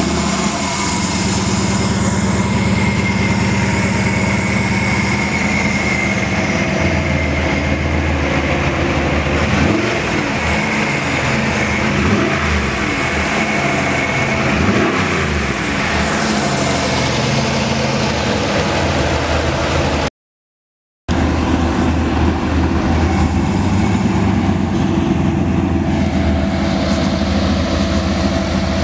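Turbocharged 6.0 L LQ4 LS V8 idling, revved briefly a few times about halfway through, with a steady high whine over the first half. The sound cuts out for about a second two-thirds of the way in.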